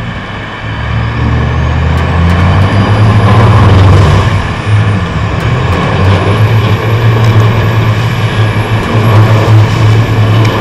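Sportfishing boat's engines running hard in reverse, backing down on a hooked blue marlin, with water churning at the stern. The engine noise builds over the first few seconds, eases briefly around the middle, then picks up again, with a high whine that rises and then holds.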